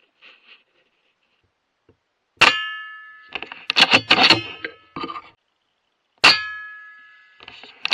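Two sharp metallic clangs, nearly four seconds apart, each ringing on and fading over about a second and followed by a quick cluster of clinking, rattling hits.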